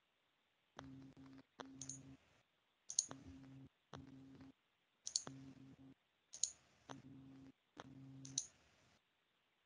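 Faint repeated clicks, about one a second. Each click opens a short burst of low hum that cuts in and out.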